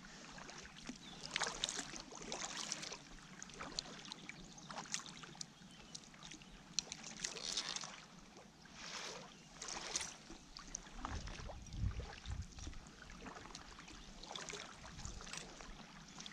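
Kayak paddle strokes: the blades dipping and splashing into calm water about once a second as the kayak is paddled along.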